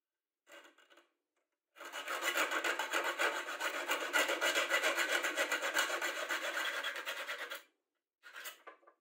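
A screwdriver turning the worm screw of a metal worm-drive hose clamp, the screw thread clicking rapidly over the band's slots in a steady rasping run of about six seconds. Brief faint handling rustles come before and after it.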